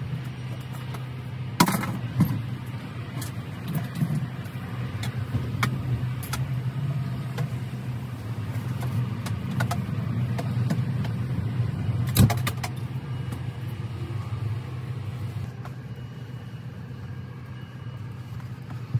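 Steady low hum of a semi-truck idling, heard from inside its sleeper cab, with a few sharp knocks as someone moves around in the cab.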